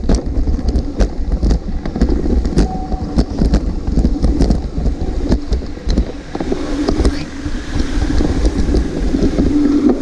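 Mountain bike rolling over a rough dirt and rocky trail: a steady rumble with frequent rattles and knocks as the bike bounces over stones and roots, and wind buffeting the microphone.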